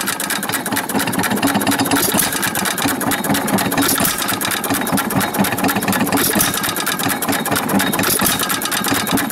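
1925 Baker Monitor 1¼ hp hit-and-miss pump jack engine running: a steady rapid clatter, with a louder burst every two seconds or so. The rattle as it fires is the starting handle on the flywheel.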